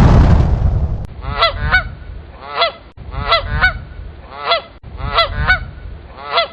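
Goose honking: short, nasal calls repeated about once a second, often in quick pairs. A loud sudden noise at the start dies away over the first second, and a low rumble runs underneath.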